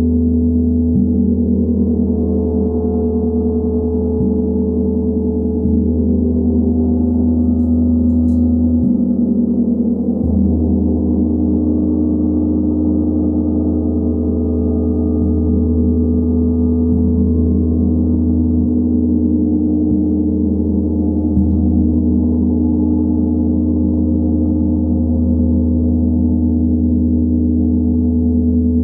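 Large Tibetan gong played with a felt-headed mallet in soft strokes every one to three seconds, keeping up a continuous low, humming swell of sustained tones with no sharp attack.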